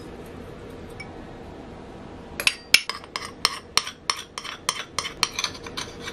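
A metal spoon clinking against a small ceramic bowl and the rim of a stainless steel mixing bowl as honey is scraped out: a quick run of about a dozen sharp clinks, roughly four a second, starting a little over two seconds in.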